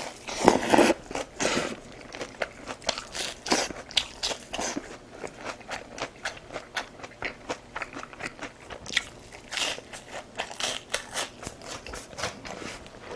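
A person chewing food close to the microphone, with crunchy bites and many small mouth clicks; the loudest bites come about half a second in and again around ten seconds.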